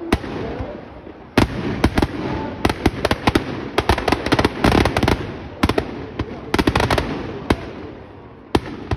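Firecrackers going off in a burning Ravana effigy: a rapid, irregular string of sharp bangs, thickest about four to five seconds in, over a steady background rush.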